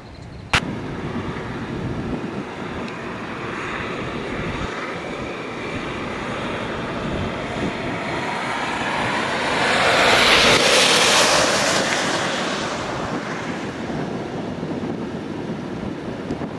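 Wind rushing over the microphone outdoors, with a sharp click just after the start and a louder hissing gust that swells about ten seconds in and dies away a few seconds later.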